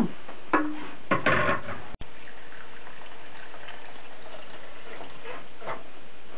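Rice being rinsed by hand in a bowl of water at a kitchen sink: water sloshing faintly over a steady hiss.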